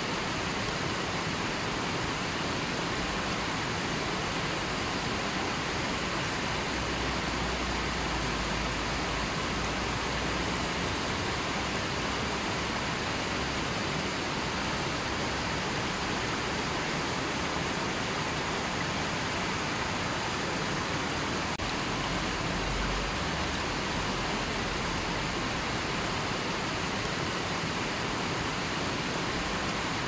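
River water flowing over rocks in a steady, even rush.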